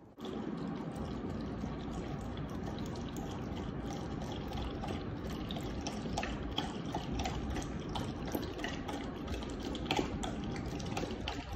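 Large curly-coated dog lapping water from a bowl: a continuous run of wet laps and splashes with small clicks.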